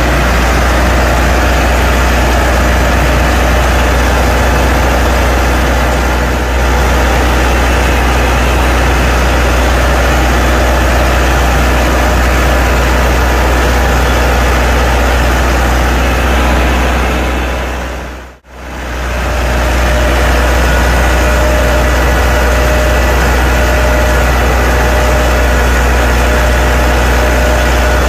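Tractor engine running steadily with a deep, low drone. It fades out and straight back in for a moment about two-thirds of the way through.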